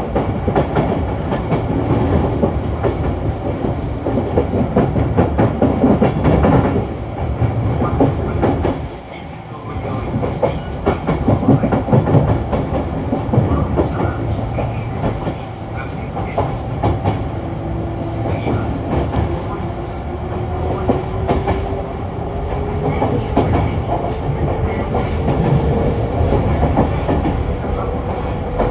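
Kintetsu 6020 series electric train running, heard from inside the passenger car: a steady rumble with wheels clacking over rail joints, and a whine rising slowly in pitch through the second half.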